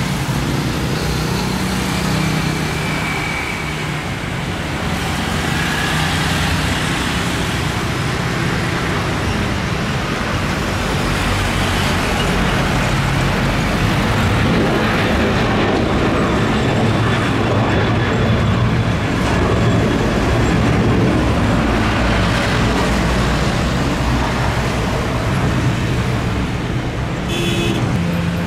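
Boeing 737 jet engines at takeoff thrust: a loud, steady roar as the airliner rolls down the runway and climbs away.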